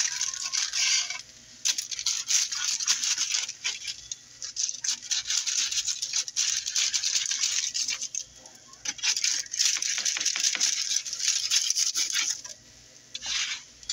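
Spatula scraping and crackling across a foil-lined baking pan as it slides under baked, breadcrumb-crusted bass fillets. It comes in several stretches of rapid scratching, with short pauses between them.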